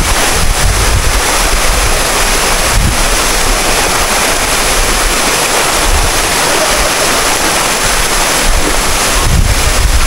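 Waterfall: a loud, steady rush of falling water, with low rumbles of wind on the microphone about half a second in and again near the end.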